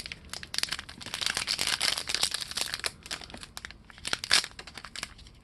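Plastic wrapper being torn and crinkled by hand as a trading card pack is opened: a dense run of irregular crackles, with one louder crackle about four seconds in.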